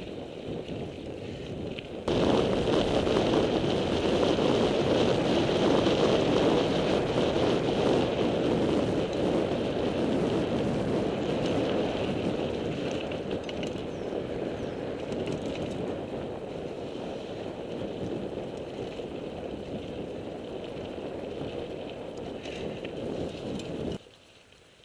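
Mountain bike riding over a rough dirt track: a dense rushing of tyres on gravel, with the bike's rattle and wind on the headcam microphone. It starts abruptly about two seconds in, slowly eases, and cuts off sharply near the end.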